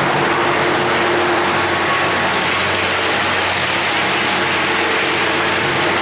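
Large industrial wood chipper running: a loud, steady mechanical noise with a low hum underneath.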